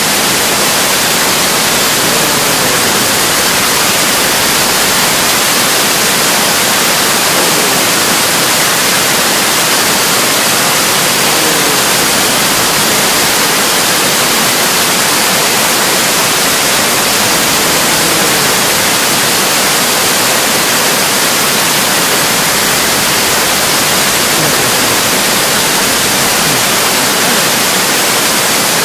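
Loud, steady hiss of noise that does not let up or change.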